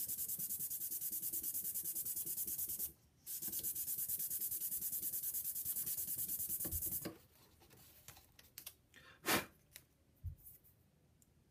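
Cane clarinet reed blank rubbed back and forth by hand on sandpaper over flat glass, a quick rhythmic rasp of several strokes a second, sanding the blank flat to take out warping and chewing divots. It breaks off briefly about three seconds in, resumes, and stops about seven seconds in, followed by a few faint handling sounds.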